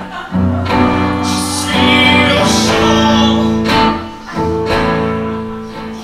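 Acoustic guitar strummed in slow chords, with a man singing over it into a microphone.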